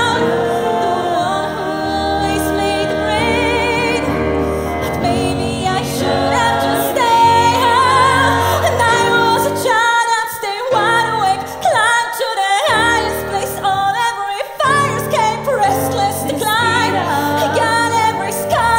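A woman singing a musical-theatre ballad with vibrato, accompanied by grand piano. The piano drops out briefly a few times in the second half, leaving the voice alone.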